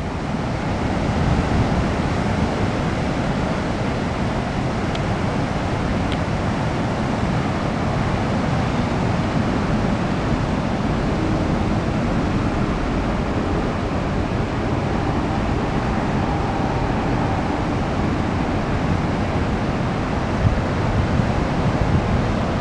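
Pacific Ocean surf at a king tide, waves breaking and washing in foam over a flooded beach and rocks, a steady rush of water with wind buffeting the microphone.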